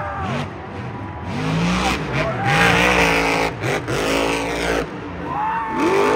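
Monster truck's supercharged V8 revving hard in repeated bursts, its pitch sweeping up and down as the throttle is blipped, with a long full-throttle run in the middle and a steep rising rev near the end.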